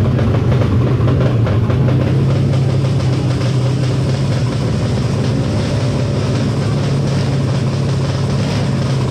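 Drag-race bike built from a Yamaha NMAX, its engine bored out to 300 cc, running at a steady speed.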